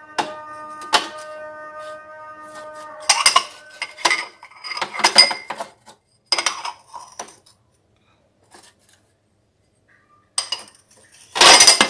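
Ceramic bowls and crockery clinking and clattering as they are picked up and stacked on a kitchen rack: two single clinks at the start, several short bursts of clatter over the next few seconds, a pause, then the loudest clatter near the end.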